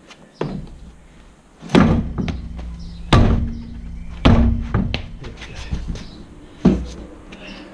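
A foot kicks the tyre of a Holden Commodore's alloy wheel that is stuck fast to the brake rotor, trying to break it loose. It makes a series of heavy thuds, about one every second or two, each with a short low ring after it.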